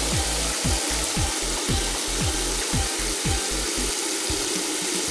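Steady hiss of car-wash nozzles spraying foam, over background music with a deep, falling kick-drum thump about twice a second.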